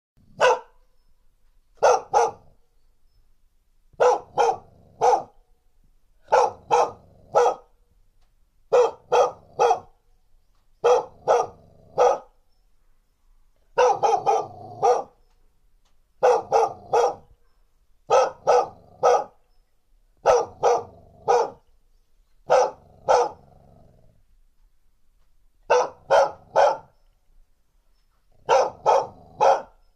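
Female dog giving threatening warning barks in quick groups of two to four sharp barks, about one group every two seconds. A short rumbling growl follows a couple of the groups.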